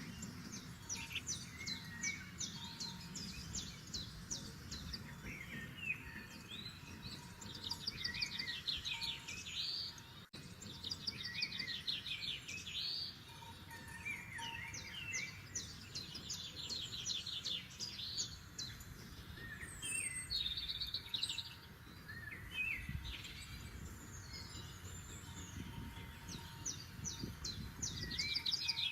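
Forest songbirds singing, several songs overlapping with rapid trills and short chirps, over a low steady rumble. There is a brief dropout about ten seconds in.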